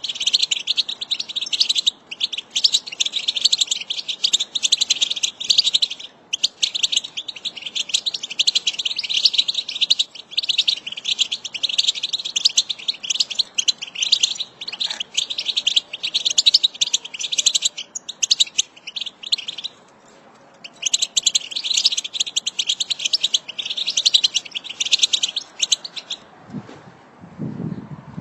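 European goldfinch twittering: a fast, continuous chatter of high notes in long phrases, broken by brief pauses and a longer one a little past the middle. This is the excited chatter that keepers play to stimulate caged goldfinches into song. Near the end a lower-pitched sound comes in under it.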